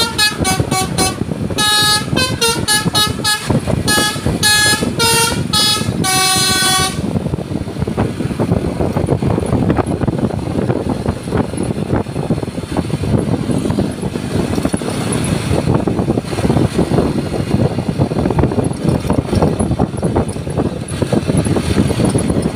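A Basuri telolet bus horn plays a quick tune of short notes, several tones sounding together in each. The tune stops about seven seconds in, and a steady noise of the bus running and road traffic carries on.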